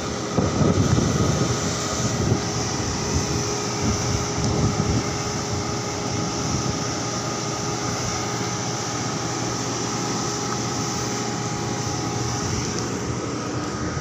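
Steady drone of heavy machinery with a few constant whining tones, from the floating crane working alongside the ship. Uneven low rumbling sits over it for the first few seconds.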